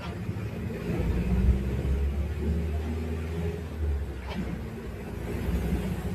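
Diesel engine of a Mercedes-Benz OF-1721 BlueTec 5 bus running with a deep, low rumble that swells and eases.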